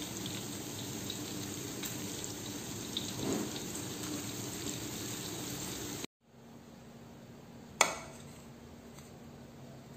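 Beef lung pieces deep-frying in hot oil in a wok, a steady sizzle with occasional small clicks as tongs turn them. The sizzle cuts off about six seconds in, leaving a faint hiss and one sharp knock near the end.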